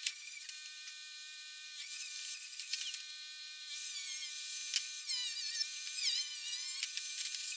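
Angle grinder with a cut-off disc cutting through scrap steel plate. The motor whines steadily; the disc starts biting into the metal about two seconds in and cuts continuously and louder from just before halfway, its pitch wavering as it cuts.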